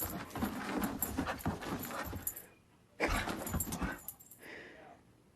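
A dog making irregular noisy sounds in short bursts, breaking off about two and a half seconds in and starting again half a second later.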